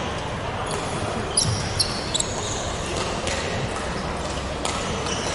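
Sports shoes squeaking briefly on a wooden badminton court floor, three short squeaks about one and a half to two seconds in, over the steady din of a large sports hall. Near the end comes one sharp tap.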